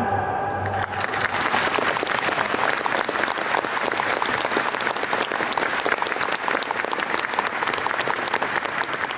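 The choir and orchestra's final held chord dies away in about the first second, then the audience claps in steady applause.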